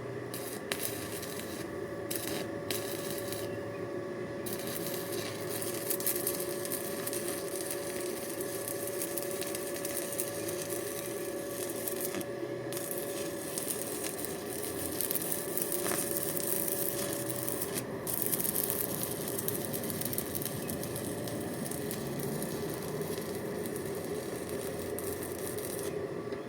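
Electric arc welding: the arc crackles and sizzles steadily, broken by a few short pauses where it stops and is struck again, over a steady hum.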